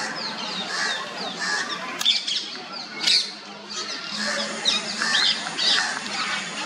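Several small birds chirping and calling, a rapid scatter of short, sharp notes, some sliding down in pitch, over a low steady background murmur.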